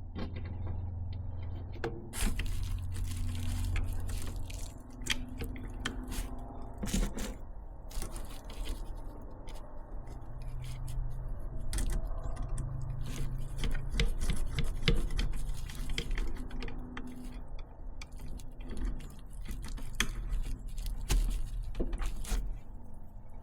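Small metal hardware being handled: washers, a bolt and a lock nut clicking and scraping as they are fitted to hold a magnet onto a solar panel, in irregular clicks throughout.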